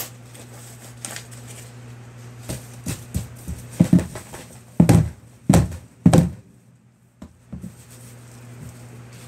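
Packaging being handled: a few soft knocks and rustles, then a cluster of four loud thumps about four to six seconds in. A steady low electrical hum runs underneath.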